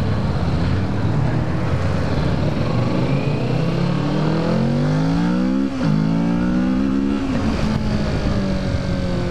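2017 Kawasaki Ninja 650's parallel-twin engine on its stock exhaust, accelerating through the gears. The engine note climbs, drops sharply at an upshift about six seconds in, climbs again and drops at a second shift a little over a second later, then holds steady, with wind noise over the microphone.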